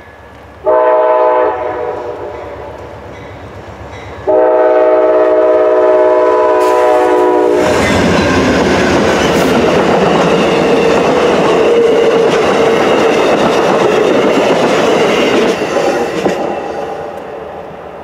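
Amtrak passenger train's locomotive horn sounding a short blast, then a long one of about three seconds, as the train approaches. The train then passes close by, with loud wheel-on-rail noise that fades away near the end.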